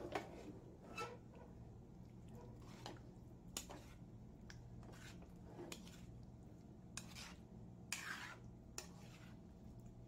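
Utensil scraping and clinking against a metal mixing bowl while potatoes in mayonnaise dressing are stirred and folded, with soft wet squishing. Faint, irregular scrapes and taps, with a longer scrape about eight seconds in.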